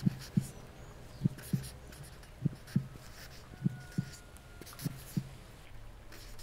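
A slow heartbeat sound, a lub-dub of two low thuds repeated about every 1.2 seconds, five beats before it stops near the end.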